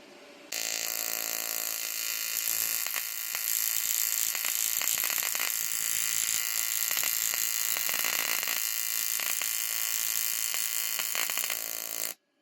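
AC TIG welding arc on aluminium from a small HZXVOGEN AC/DC TIG welder: a steady electric buzz with some crackling, struck suddenly about half a second in and cut off just before the end.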